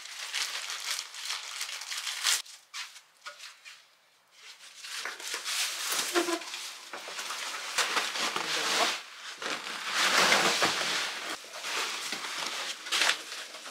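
Rustling and scraping of a floor mat and a roll of artificial turf being handled, dragged and unrolled over a tile floor, in irregular bursts with a brief pause about four seconds in.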